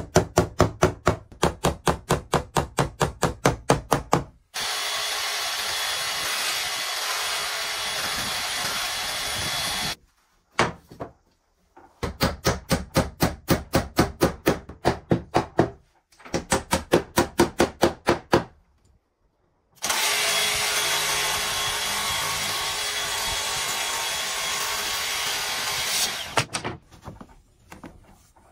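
A small hammer tapping nails into wooden skirting board, in quick runs of about five strokes a second. Twice, for about five or six seconds each, a steady machine noise takes over, starting and stopping abruptly.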